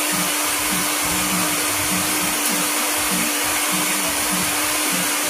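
Countertop blender running at its higher speed, liquidizing mango pulp and bananas with water into juice: a loud, steady whir with a constant motor hum.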